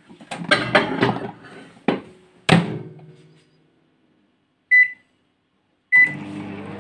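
Knocks and clatter as a lidded dish goes into a microwave oven and its door shuts, then two short beeps from the keypad as it is set for 10 minutes at full power. About six seconds in the microwave starts running with a steady hum.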